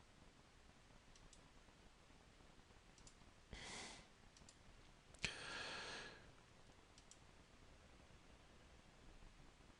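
Faint, scattered computer mouse clicks, with two short soft exhalations about three and a half and five seconds in.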